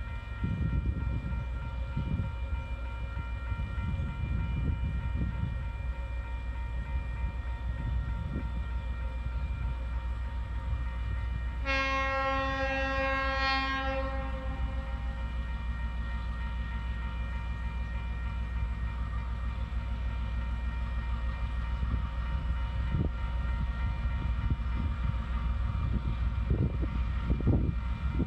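A diesel locomotive horn gives one long blast of about two to three seconds, about twelve seconds in, as TasRail DQ 2009 approaches the level crossing with the cement train. Steady ringing tones, likely the level crossing warning bells, run underneath, along with a low gusty rumble.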